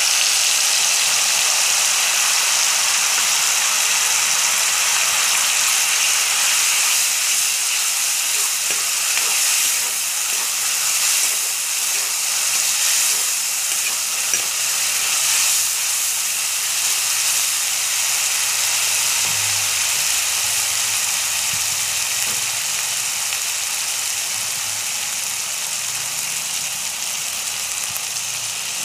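Water-thinned spice paste sizzling loudly in hot mustard oil with fried onions as it is stirred in a kadai. The paste is garlic-ginger paste, Kashmiri red chilli and ground spices. The sizzle is loudest at first and slowly eases.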